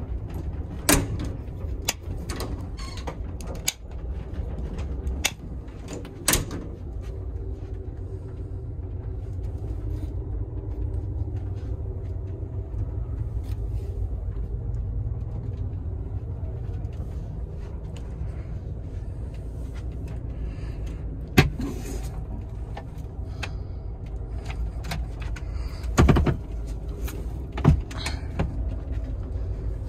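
Steady low rumble of an Amtrak Superliner sleeping car running along the track, heard from inside a bedroom. Several sharp knocks and clunks come through it, the loudest in the last third.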